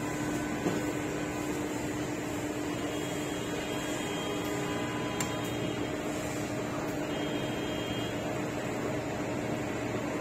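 Automatic flux-and-soldering machine running: a steady mechanical hum with a constant low tone, and a faint tick just under a second in.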